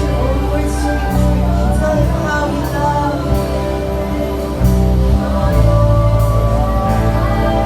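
Church worship music with a heavy bass line and sustained chords, the bass notes changing about once a second.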